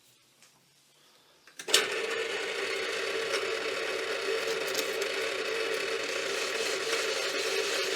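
Metalworking lathe switched on a little under two seconds in, then running steadily with a constant whine over gear noise.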